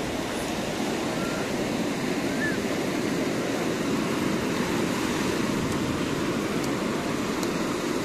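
Steady surf washing onto a sandy beach, mixed with the chatter and occasional calls of a crowd of bathers.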